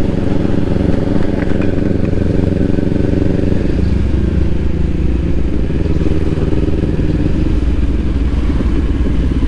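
Kawasaki Ninja 400's 399 cc parallel-twin engine running while the bike rides along. The engine note drops to lower revs about four seconds in and holds there.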